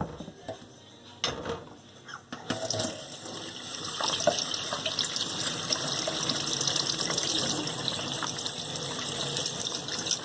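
A few knocks, then a tap turned on about two seconds in, water running steadily through a dishwasher spray arm and spraying out of its jet holes.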